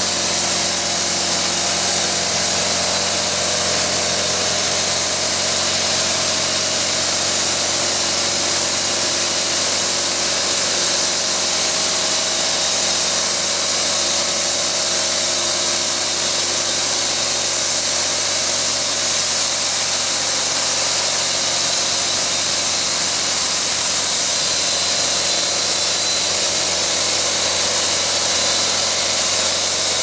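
Logmaster band sawmill with an 86 hp engine, running at a steady speed. Its engine hum sits under a strong, even high hiss.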